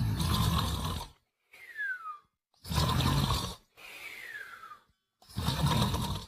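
Snoring in a steady cycle: a loud, rasping snore about a second long alternates with a whistle that falls in pitch. There are three snores and two whistles.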